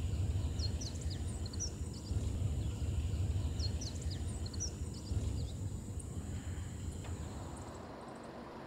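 Evening outdoor ambience: small birds chirping in two short flurries over a steady low rumble, with a thin steady high tone throughout.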